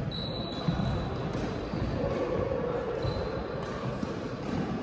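Badminton play in a sports hall: a few sharp racket hits on the shuttlecock and a brief high squeak near the start, over steady hall noise.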